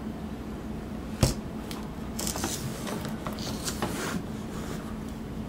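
Cardboard box being handled and turned over by hand: rustling and crinkling of its glossy wrapping, with one sharp knock about a second in.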